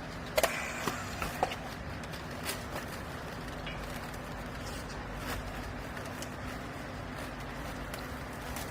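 A machine running with a steady hum, with a quick cluster of sharp knocks in the first second and a half and a couple of fainter knocks later.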